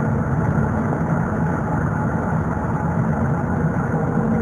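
Steady low drone of a car's engine and road noise heard from inside the cabin of a moving car, with the windows up.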